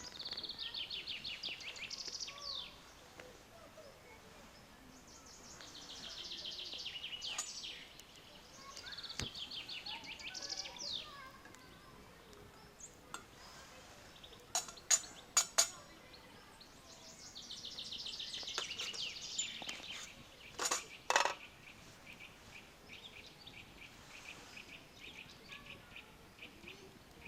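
Bird song in repeated high trilled phrases, each about two seconds long. A quick cluster of four sharp clinks comes near the middle, with two more a few seconds later.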